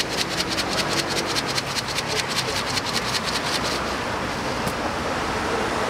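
Steady street traffic noise. For the first four seconds or so it carries a rapid, even ticking of about ten clicks a second.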